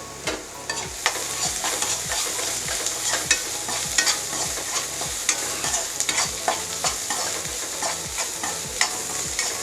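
Chopped onions frying in oil in a pan, sizzling steadily, while a spatula stirs them with frequent short clicks and scrapes against the pan.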